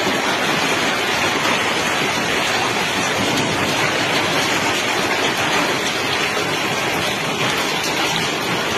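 Hail and heavy rain pelting down, a dense, steady hiss of many small hits.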